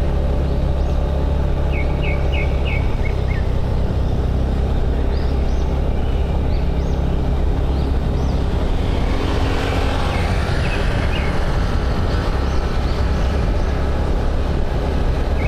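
Motorbike engine running at a steady cruising speed with wind and road rush, heard from the rider's seat. A few short high chirps come a couple of seconds in, and the rushing noise swells briefly about two-thirds of the way through.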